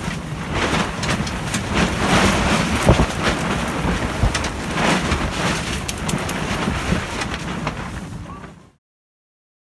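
Strong wind buffeting a tent, the fabric flapping and snapping in gusts over a steady wind rumble on the microphone. It cuts off abruptly near the end.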